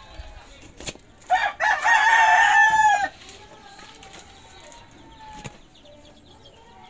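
A rooster crowing once, about a second in: a short first note, then a held note of about a second and a half that drops in pitch as it ends.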